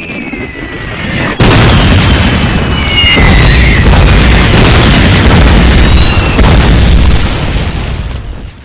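Sound effect of an incoming artillery shell whistling down in pitch, then a sudden explosion about a second and a half in. A loud rumble of blasts follows, lasting several seconds and fading near the end.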